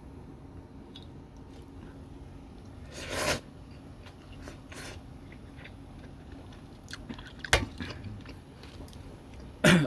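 A person eating cold meat soba: chewing, with short noisy slurps about three seconds in and again near the end, and a sharp click at about seven and a half seconds.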